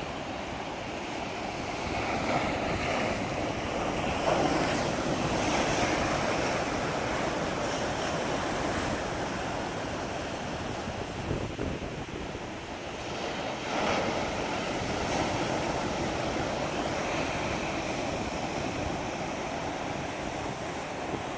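Sea waves breaking and washing on the shore, the surf swelling and easing in slow surges, with wind buffeting the microphone.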